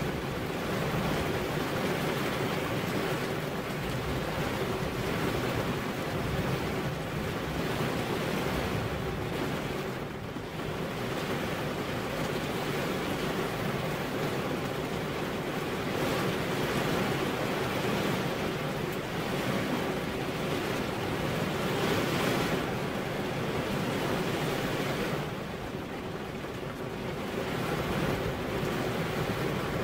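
Steady rain falling, a soft even hiss that eases slightly twice, about a third of the way in and near the end.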